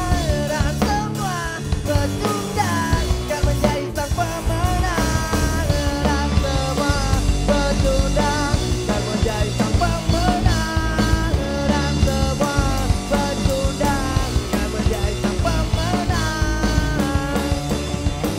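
Punk rock band playing live: electric guitar, bass guitar and drum kit, with a male lead singer singing over them.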